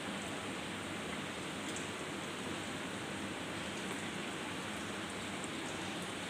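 Steady, even hiss with a few faint ticks.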